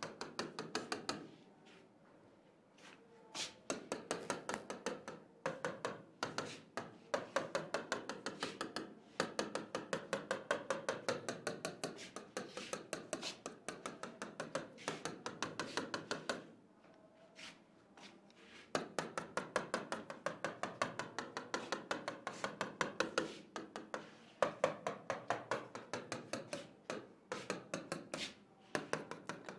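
A pen stylus tapping and scraping on the glass screen of an interactive display in quick short strokes, several a second, each stroke one drawn dash. It pauses briefly twice, about a second and a half in and again around the middle.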